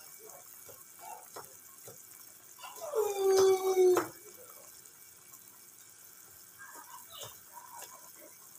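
A pot of noodle soup boiling, faint and steady, with a few light clicks. About three seconds in, a loud drawn-out pitched cry lasts just over a second.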